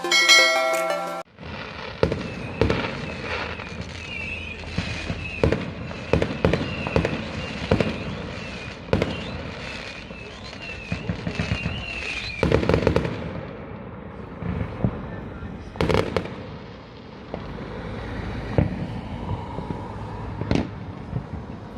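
Fireworks going off in rapid crackling bangs, with a wavering high whistle running for several seconds through the middle and a few louder bangs later on. A second of music plays at the very start before the fireworks cut in.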